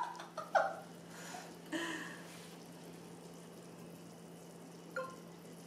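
Quiet room tone with a steady low electrical hum. A few brief, faint short sounds come near the start and once near the end.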